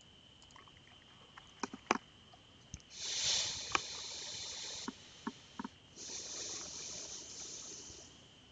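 Computer mouse clicks, with two stretches of hiss of about two seconds each: the louder one starts about three seconds in and the second about six seconds in. A faint steady high whine runs underneath.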